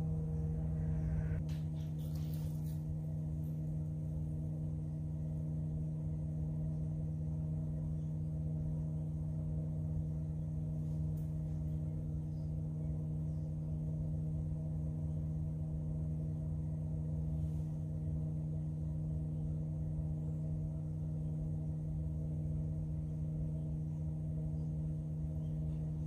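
Electric pottery wheel motor humming steadily as the wheel spins at constant speed, one low tone with fainter tones above it. A few brief clicks come about two seconds in.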